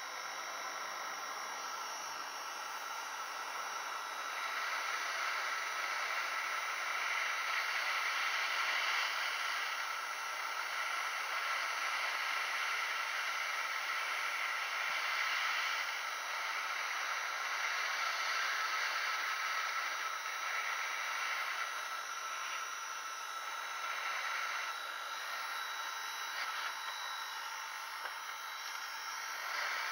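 Hot-air heat gun blowing on a laptop mainboard's graphics chip to reflow its solder: a steady hiss of rushing air with a faint fan whine, growing a little louder about four seconds in.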